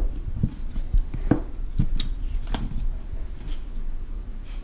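Irregular light clicks and knocks from a plastic ketchup squeeze bottle being squeezed and handled over a plate and wooden cutting board on a kitchen counter.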